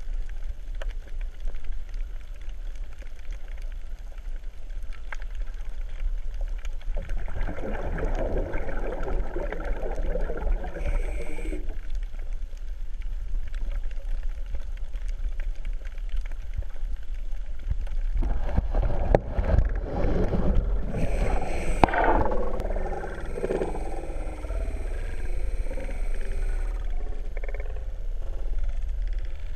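Water sloshing and gurgling heard through a camera held just under the surface, over a steady low rumble; it swells twice, about a quarter of the way in and again past the middle.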